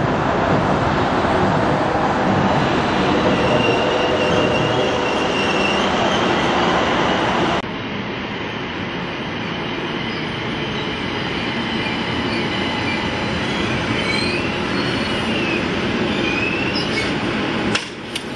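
Pittsburgh light rail car running into the station, its wheels squealing on the rails in thin, shifting high tones in the second half as it slows. A couple of sharp knocks come near the end as it stands at the platform.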